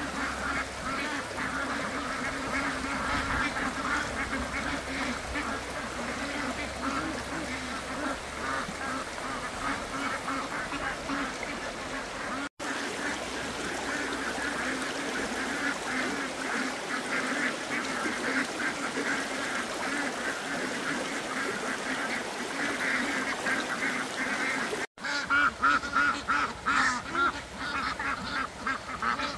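A flock of domestic ducks quacking together without a break, the calls growing louder near the end.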